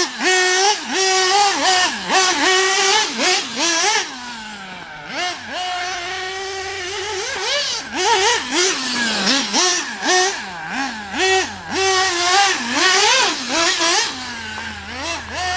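.21 nitro RC engine with a tuned pipe, revved up and down in quick throttle bursts, settling into a steady high idle twice, for a few seconds in the middle and again near the end.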